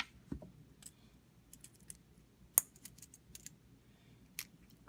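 Scattered small clicks and taps as the cap is prised off a fidget spinner's centre bearing, with one sharp click about halfway through the loudest.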